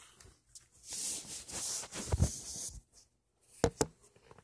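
Multi-tool blade scraping and cutting at strong packing tape on a cardboard box, a rubbing hiss for a couple of seconds, then two sharp clicks near the end.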